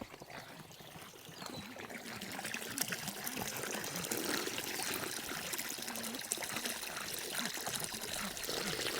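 Water running from a garden hose, a steady trickle that builds up over the first few seconds and then holds even.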